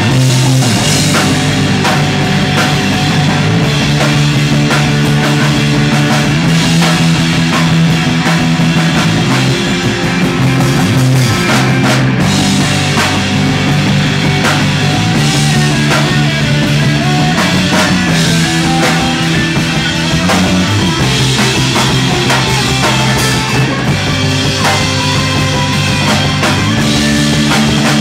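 Loud rock music with distorted guitar, bass and a full drum kit playing steadily, with no break.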